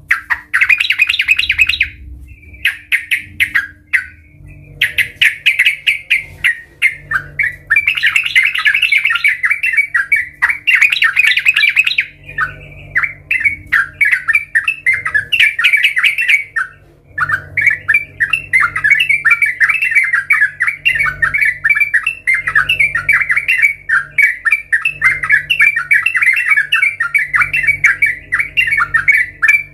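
Yellow-vented bulbul singing: long runs of quick chattering notes, broken by a few short pauses.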